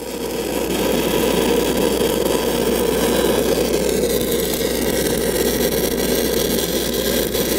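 Stick-welding arc from a 6010 rod running a downhill root pass on pipe: a steady, loud crackle and hiss as the rod is pushed into a tight, ground-thinned joint with the amperage just turned up, growing louder over the first second. A steady low hum from the engine-driven welder runs underneath.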